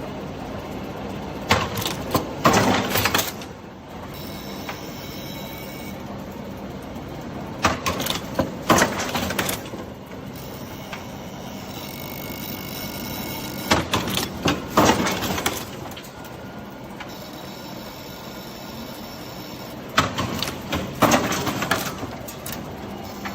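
Chain welding machine running through its cycle: a burst of loud mechanical noise about every six seconds, four times, over a steady machine hum.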